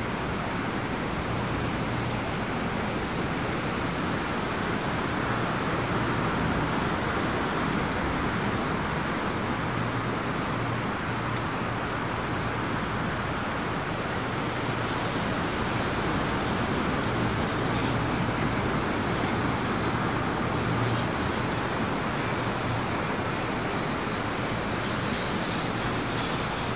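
Steady rushing noise of riding a bicycle along a paved path, wind and tyre noise with a low hum underneath, and a run of fine ticks near the end.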